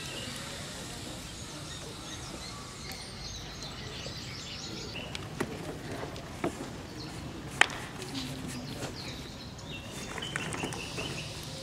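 Outdoor ambience with small birds chirping, and three sharp clicks in the middle, the loudest about seven and a half seconds in.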